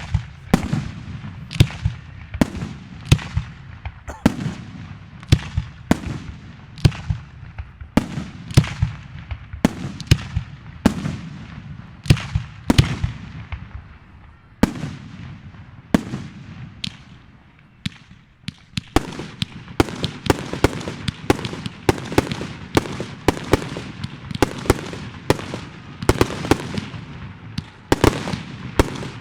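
Aerial fireworks bursting in a long string of sharp bangs, each trailing off in a short echo. They come about once a second, pause briefly about two-thirds of the way in, then come faster and overlap toward the end.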